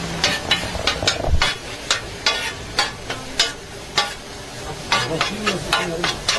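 Metal spatula clacking and scraping against a flat steel griddle as minced meat is chopped and turned, in irregular strikes of roughly three a second, over the meat sizzling on the hot plate.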